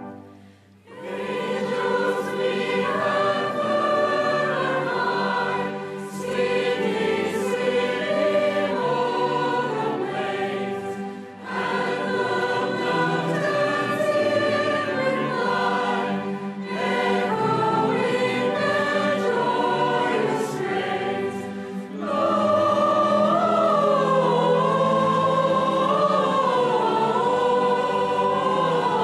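Large mixed choir singing a Christmas carol in long phrases, accompanied by a symphony orchestra. It comes in after a brief pause at the start and grows louder for the last phrases.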